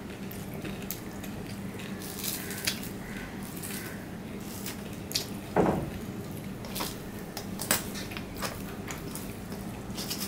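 Fingers mixing rice on a stainless steel plate: scattered soft wet squishes and light clicks against the steel, over a faint steady hum. A single low thump about five and a half seconds in is the loudest sound.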